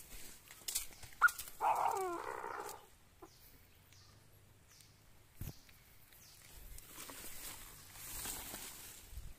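A francolin call: one harsh, pitched call of about a second, about two seconds in, just after a short rising chirp. Then soft rustling of grass and leaves with a few light knocks.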